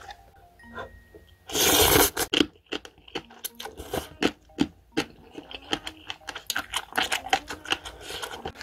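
Plastic lid being taken off a foam cup-ramen bowl: one loud brief rustle about a second and a half in, then scattered light crackles and clicks of the plastic and foam being handled.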